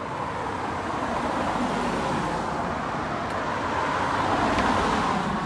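A car approaching on a wet road and passing close by, its tyres hissing on the wet surface. The hiss grows louder to a peak near the end, then begins to fade.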